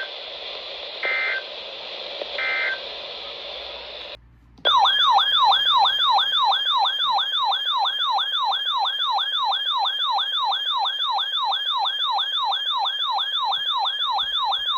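Weather radio audio: over a steady radio hiss, three short data bursts about a second apart, the EAS end-of-message code. Then, about four and a half seconds in, a loud electronic siren-like alert tone warbles up and down about three times a second for some ten seconds.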